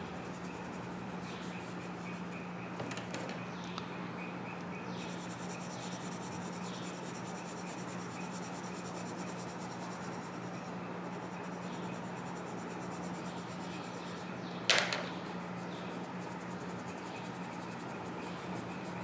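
Steady background hum and hiss, with a few faint ticks about three seconds in and one sharp click about fifteen seconds in.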